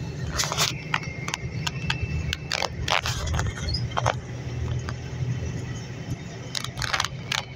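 Steady low rumble of a moving double-decker coach heard inside its cabin, with frequent sharp clicks and rattles.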